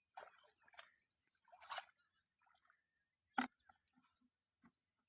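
Faint sloshing of pond water, three short splashes in the first two seconds, then a single sharp knock a little past the middle.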